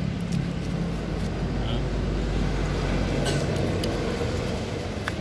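A brush scrubbing the wet, grimy metal of a motorcycle engine crankcase that has been soaked in cleaning solution, working loose the caked-on dirt. A steady low hum runs underneath.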